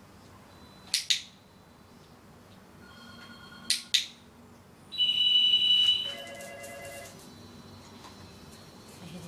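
A dog-training clicker clicks twice, each a quick double snap. About five seconds in comes a loud, steady high tone lasting about a second, followed by fainter tones at several pitches.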